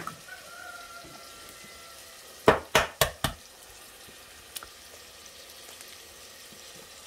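Eggs being cracked: four quick, sharp taps of eggshell against the rim of a bowl, over a low steady hiss of frying.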